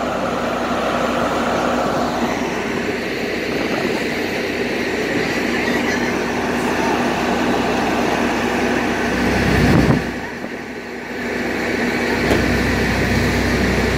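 A ferry's engine runs with a steady drone while wind buffets the microphone, with a strong low gust just before ten seconds in.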